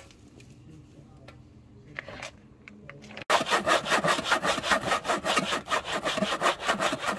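Hand saw cutting through a bendy plastic strip laid on a wooden block. After a few faint handling clicks, quick, steady back-and-forth saw strokes start about three seconds in.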